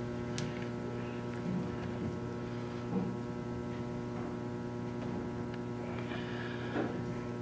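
A steady low hum with a ladder of evenly spaced overtones, the sound of electrical mains hum or running machinery, with a few faint knocks and rustles as an oily oil filter element is handled.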